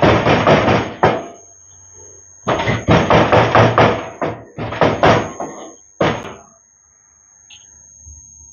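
A utensil knocking in a bowl as shawarma filling of shredded chicken, cabbage, mayonnaise and spices is mixed: quick strokes, about five a second, in bursts of one to two seconds, stopping about six and a half seconds in.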